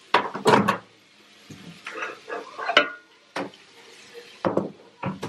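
GE countertop microwave door opened with a run of sharp clacks and knocks, followed by lighter clattering as a dish is handled and taken out.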